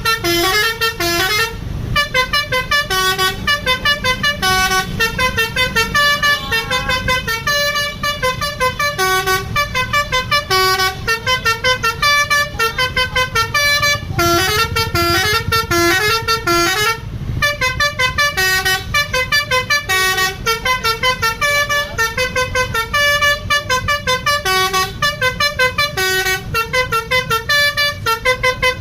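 Basuri musical bus horn ('telolet') playing a tune as a fast run of short, stepping notes in repeated phrases, with a brief break about two seconds in and another about seventeen seconds in. A low rumble runs underneath.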